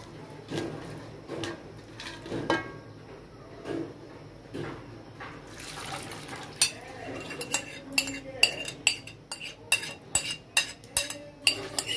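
Utensil knocking in a cooking pot as fried beef is stirred, then a short pour and a run of sharp ringing clinks, about two to three a second, of a spoon against a bowl as soaked lentils are tipped and scraped into the pot.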